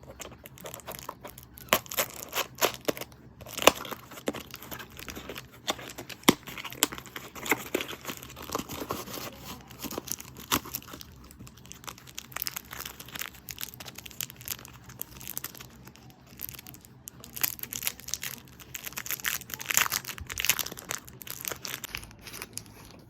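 Nail art kit packaging being handled and opened: crinkling, rustling and tearing, with many irregular sharp clicks and taps.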